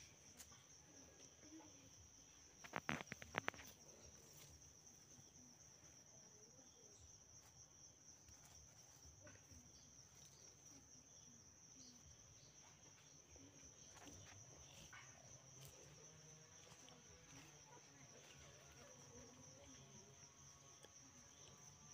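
Faint, steady, high-pitched insect chirring, with a quick cluster of sharp clicks about three seconds in.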